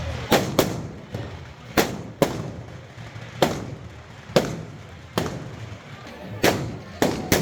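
Firecrackers (bangers) going off one after another: about ten sharp bangs at irregular intervals, each with a brief echo, with a pair in quick succession near the start and another near the end.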